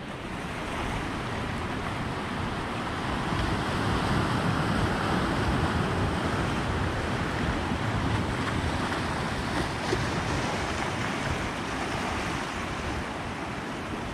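Sea surf washing over a rocky shore ledge: a steady rushing that swells a little a few seconds in.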